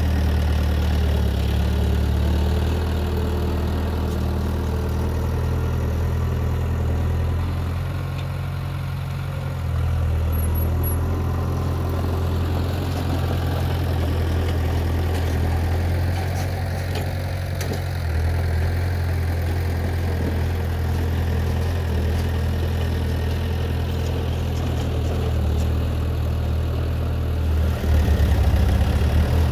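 Heavy diesel engine of earthmoving machinery running steadily at low revs, with a low, even note. It grows louder near the end.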